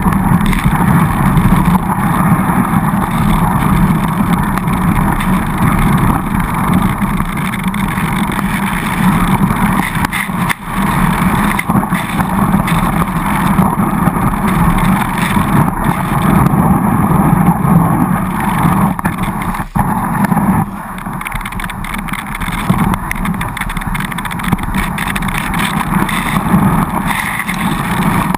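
Skis running fast over snow: a loud, continuous rushing and scraping rumble, picked up by a camera mounted on the ski itself. The noise drops briefly twice, about a third and two-thirds of the way through.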